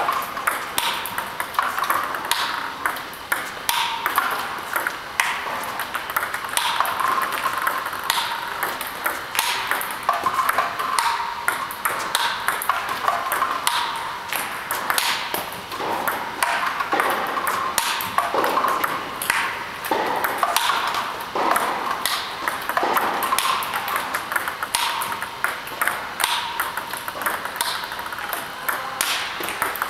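Table tennis rally against a ball robot: a quick, steady run of sharp plastic clicks as topspin balls are fired, bounce on the table and are struck back with a bat faced with XIOM Janus DF 1.5 rubber.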